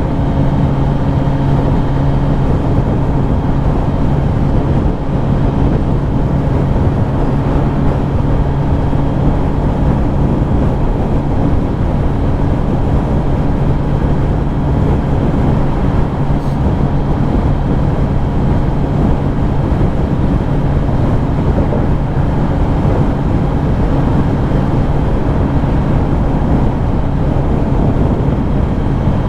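Kawasaki Ninja ZX-10R inline-four engine running at a constant speed while cruising, its hum held at one steady pitch throughout, over a steady rushing noise.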